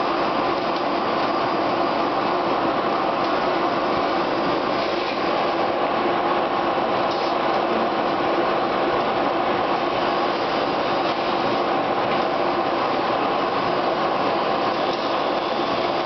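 Pneumatic vacuum conveying system running, sucking sawdust up a spiral PVC suction hose: a steady, unbroken rush of air and material.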